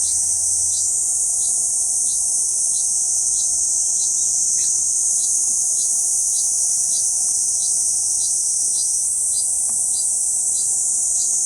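Kuroiwa niinii cicada (Platypleura kuroiwae) singing: a steady, unbroken, high-pitched buzzing drone.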